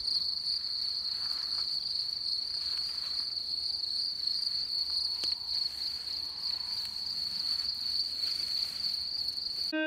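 Crickets trilling in one steady, unbroken high-pitched trill, with faint rustles of bare feet in the grass; the sound cuts off suddenly just before the end.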